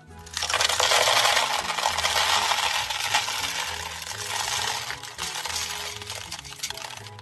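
Candy-coated chocolates pouring out of a plastic container into a plastic toy bathtub already full of candies: a dense clattering rattle that starts about half a second in and tapers off near the end.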